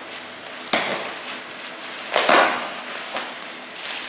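Plastic bubble wrap crinkling and rustling as it is pulled off and handled, in several short bursts, the loudest about two seconds in.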